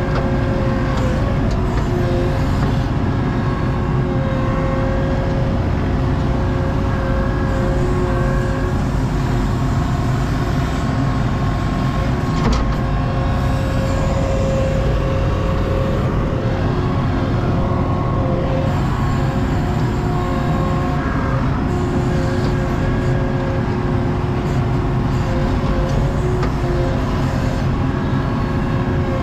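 Skid steer engine running steadily under work, with a steady whine above the engine noise that grows and fades from time to time.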